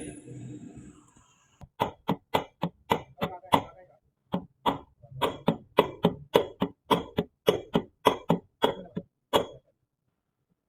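A long run of hammer blows, roughly three to four a second with a brief pause partway, each strike ringing briefly, while the washing machine drum is worked apart to replace its bearing. The blows stop near the end.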